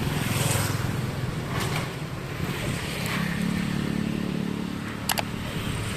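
Large bus diesel engine running with a steady low rumble, the engine note strengthening about three seconds in; a single sharp click about five seconds in.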